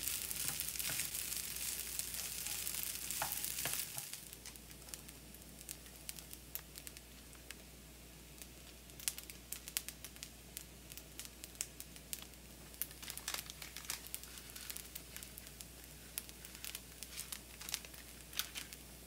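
Garlic fried rice sizzling in a hot pan while stirred with a wooden spatula. About four seconds in the sizzle drops to a quieter, steady hiss with scattered crackles and the light crinkle of a seasoning packet.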